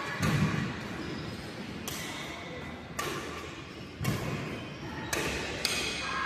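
Badminton rackets hitting a shuttlecock back and forth in a rally, a sharp hit about once a second, with low thuds of players' footwork on the court.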